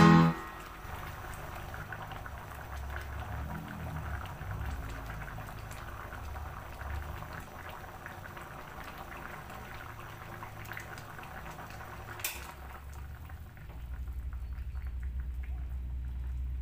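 Fish curry simmering in an aluminium wok, a steady mass of small bubbles popping. Under it a low hum, which grows louder about three-quarters of the way through, and a single sharp click shortly before that.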